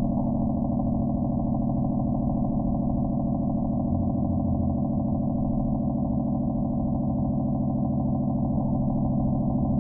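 A steady, unbroken low mechanical hum, like an engine or machine running, holding the same level throughout.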